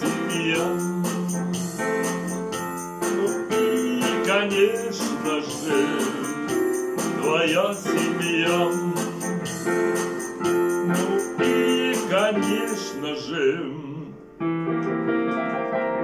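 Keyboard music played on a Casio digital piano: steady held chords with a wavering melody line above them. About fourteen seconds in the sound briefly fades, then comes back with a duller, changed texture.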